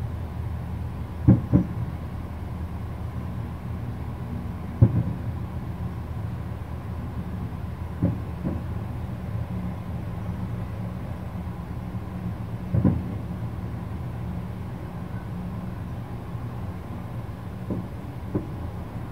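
Distant aerial fireworks shells bursting: about eight dull booms spaced unevenly, several in close pairs, over a steady low rumble.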